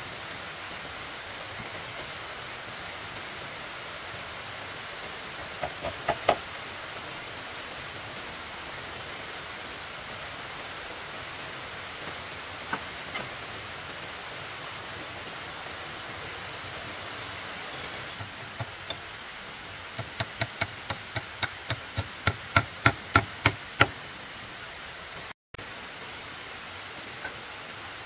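Steady background hiss with a few quick knocks, then a rapid series of about fourteen sharp strikes, three or four a second, that grow louder before stopping.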